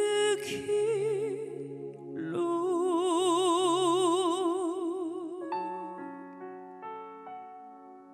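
Woman singing a slow song into a microphone over instrumental backing, holding a long note with wide vibrato that ends about two-thirds of the way through. The backing music then plays on alone and fades.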